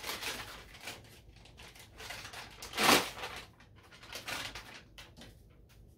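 Plastic MRE food pouch crinkling and rustling as it is handled and opened, in scattered short rustles with one louder crackle about three seconds in.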